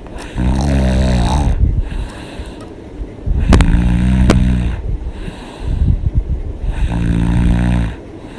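A woman snoring loudly with her mouth open: three long snores about three seconds apart, with quieter breathing between them. The middle snore carries a couple of sharp clicks.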